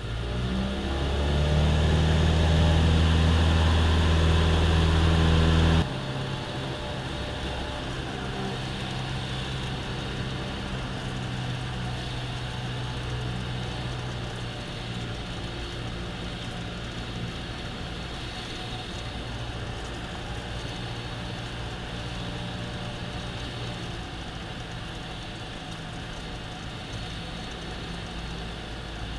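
Cessna 172M's Lycoming O-320 four-cylinder engine and propeller heard from inside the cabin: the throttle comes up to full takeoff power over about a second and a half and the engine runs loud and steady. About six seconds in the sound drops abruptly to the engine running steadily at reduced power on approach to land.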